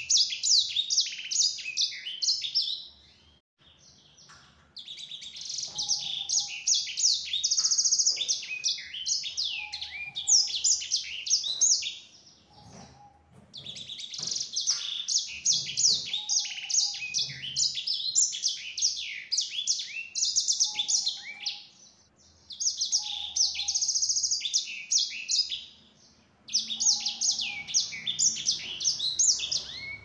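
Black-throated canary (sanger) singing: long bouts of rapid, high warbling song full of fast trills and chattering notes. There are five bouts, broken by short pauses.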